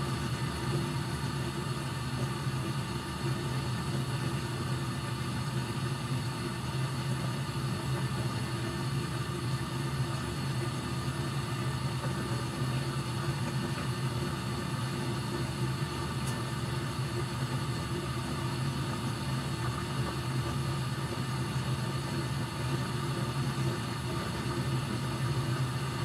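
Gas furnace running with its circulating blower fan on: a steady, even hum.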